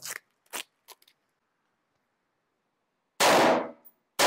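A few faint clicks in the first second, then two rifle shots about a second apart near the end, each ringing off the walls of an indoor range.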